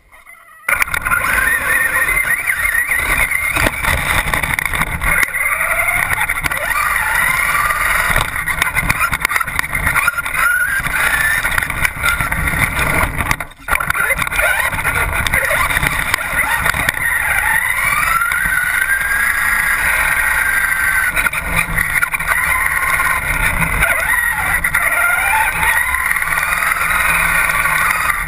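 Traxxas RC car driving with a camera riding on it: a loud rumble and rattle of the chassis and tyres, with the motor's whine rising and falling in pitch as the throttle changes. The noise cuts out briefly about halfway through.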